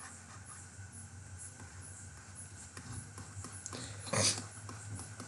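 Quiet room tone with a steady low microphone hum, and one short burst of noise about four seconds in.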